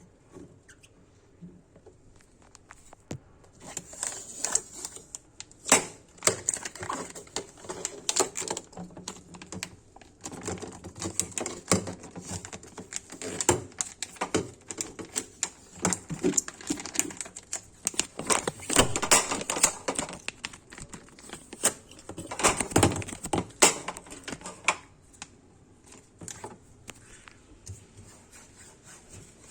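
Irregular clicks, taps and rustles of hands handling items: plastic parts and papers being moved about. It starts a few seconds in, is densest in the middle and dies away near the end.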